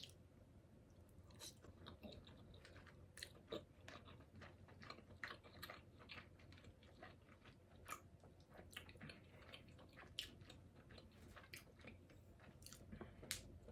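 A person chewing food close to the microphone, with faint, irregular wet clicks and mouth smacks.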